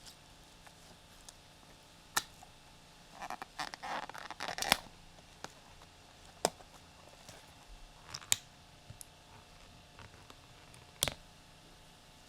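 Objects being handled: a few sharp separate clicks or knocks, with a short stretch of rustling and scraping about three to five seconds in.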